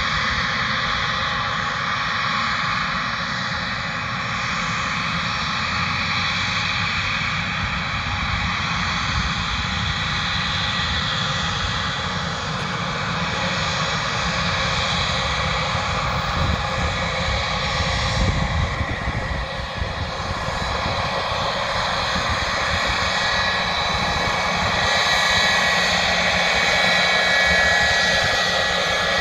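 Boeing 717's twin Rolls-Royce BR715 turbofan engines running at taxi power: a steady jet hiss with a thin high whine that grows louder near the end as the aircraft comes close.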